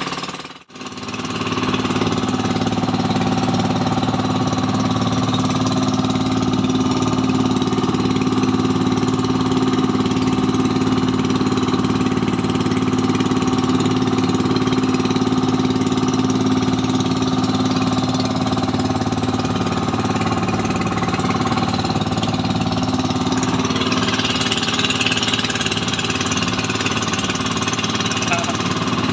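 Outrigger fishing boat's engine running steadily at sea, with a constant low chugging drone. It cuts out for a moment right at the start.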